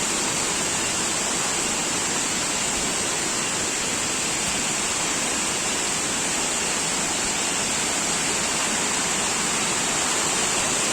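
Waterfall's falling water making a steady, even rushing noise with no break.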